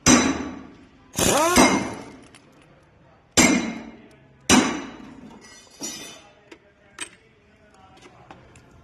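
Sharp metallic clanks of tools and metal engine parts being struck or set down during an engine teardown, each with a ringing tail that fades. There are four loud ones in the first half, then a few fainter clinks.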